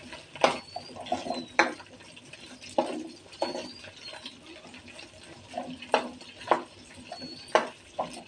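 Shrimp frying in a little oil in a wok, with a spatula knocking and scraping against the pan about seven times at uneven intervals as the shrimp are turned.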